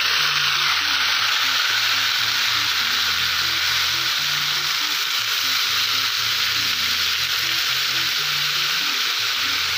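Water-soaked raw potato sticks frying in hot rendered pork fat in a cast-iron kazan: a loud, steady sizzle from the wet potatoes hitting the fat, as they are stirred with a metal skimmer.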